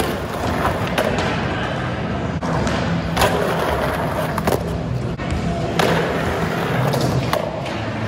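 Skateboard wheels rolling on a concrete floor, with several sharp clacks as the board hits down and grinds along a ledge.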